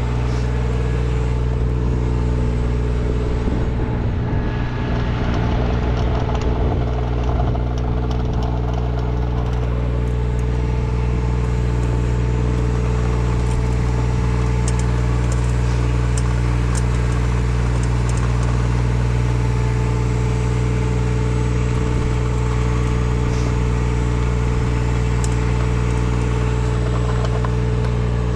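An engine running steadily at constant speed, a loud, even drone.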